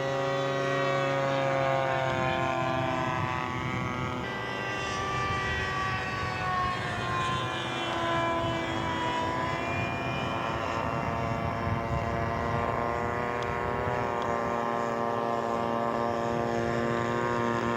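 Radio-controlled scale model airplane's engine and propeller droning steadily in flight, its pitch sliding down partway through.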